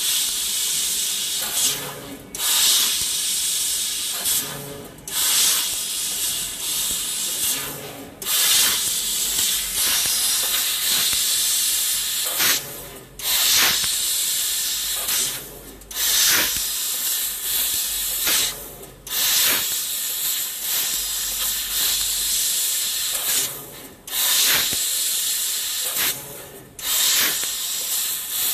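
Laser tube-cutting machine (2 kW) cutting 1 mm stainless steel square tube: a loud steady hiss at the cutting head, broken every few seconds by short pauses between cuts.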